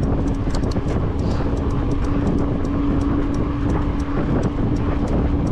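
A bicycle rolling along an unpaved gravel road, heard through an action camera: a steady wind rumble on the microphone, many small stones ticking off the tyres, and a steady hum underneath.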